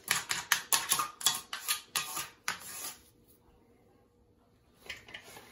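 Hard tools clicking and scraping in a quick run of sharp strokes, about four a second, which stop about three seconds in.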